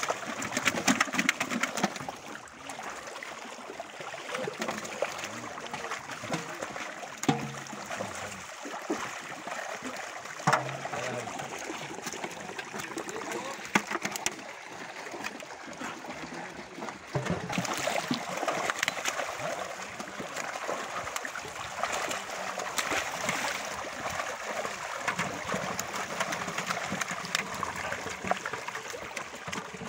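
Pond water splashing and trickling as a net packed with live fish is drawn in, the fish thrashing at the surface, with louder splashes every now and then.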